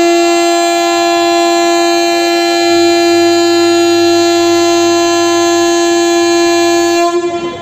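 Indian Railways express locomotive horn sounding one long, steady, single-pitched blast that cuts off about seven seconds in, the horn for the train's departure.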